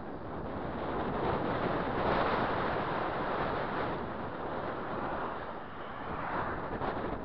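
Wind noise buffeting the microphone of a camera moving along a road: a steady rush of air that swells and eases slowly, with no clear engine note.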